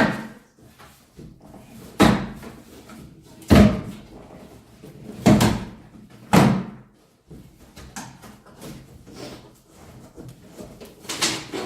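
Cardboard shipping carton of a bicycle being handled and opened: a series of about six sharp knocks and thumps, a second or two apart.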